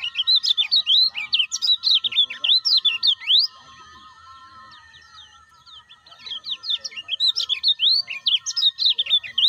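Kecial kuning (a white-eye) singing in two bursts of rapid, chattering chirps, the first in the opening three seconds and the second from about six seconds in, with a pause between. Faint steady high tones run behind the song.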